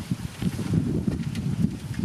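Low, uneven rumble of heavy earthmoving machinery running, mixed with wind buffeting the microphone.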